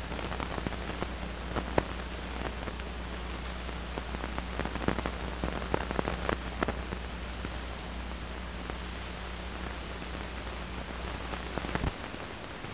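Hiss and scattered crackle of an old optical film soundtrack, with a steady low hum that cuts off about twelve seconds in; no music or speech.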